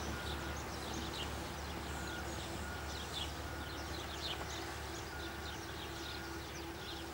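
Small songbirds chirping repeatedly in quick, short downward-sweeping notes over a steady low background hum.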